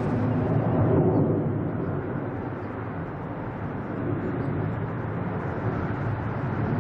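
Jet engines of a Boeing 767 airliner climbing out after takeoff, heard from the ground as a steady low roar that fades a little in the middle and swells again near the end.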